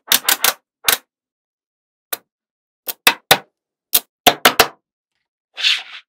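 Small magnetic balls clicking together as magnetic-ball sections are snapped into place: irregular clusters of sharp clicks, then a short rattling rub of balls near the end.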